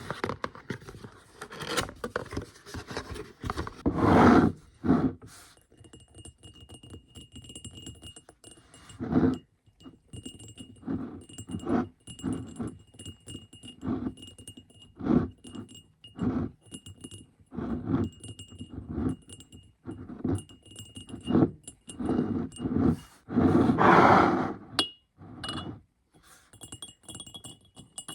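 Hands handling haul items, with irregular taps, knocks and rustles as things are picked up and set down. From about six seconds in, a faint high tinkling repeats on and off.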